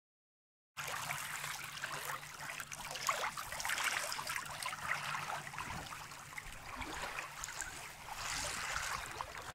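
Water splashing and trickling against a sea kayak's hull as it moves over choppy sea. It starts abruptly about a second in.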